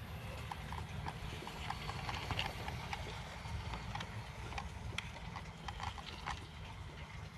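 1:24 scale electric model locomotive running on 45 mm gauge garden track, its wheels clicking irregularly over rail joints and points over a steady low rumble from its motor and gearbox, loudest as it passes close and fading as it pulls away. The gearbox noise comes from deteriorated lubricating grease.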